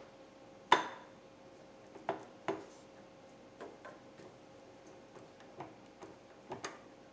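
Scattered light metal clinks and taps from a workpiece and tools being shifted in a machine vise while it is lined up, the sharpest one under a second in, over a faint steady hum.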